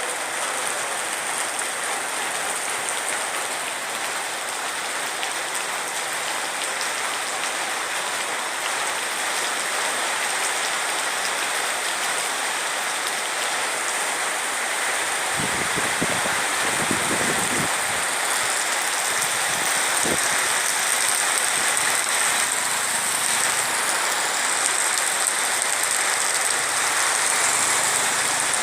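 Steady, even hiss of water, with a few low knocks about halfway through.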